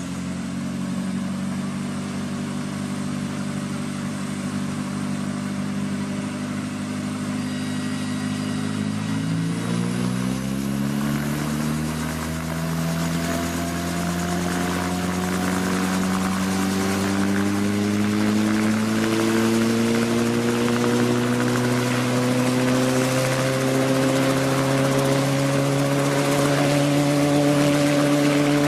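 Homemade ultralight helicopter's engine running steadily with the rotor turning, then revving up about a third of the way in. Its pitch keeps climbing slowly and it grows louder as rotor speed builds toward liftoff.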